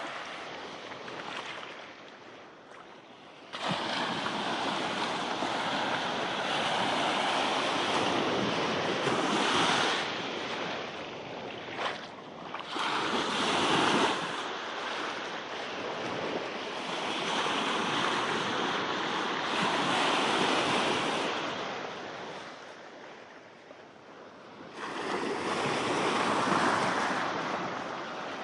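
Indian Ocean surf breaking and washing ashore, a steady roar of water that swells and fades in waves every few seconds.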